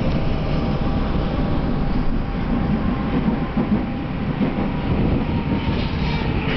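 Subway train running through a tunnel, heard from inside the passenger car: a steady low rumble of steel wheels on the rails.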